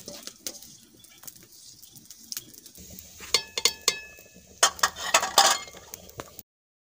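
Aluminium cooking pot, lid and metal utensils clinking and tapping. A ringing metallic clink comes about three seconds in, and a cluster of louder clatters follows a little later. The sound cuts off abruptly near the end.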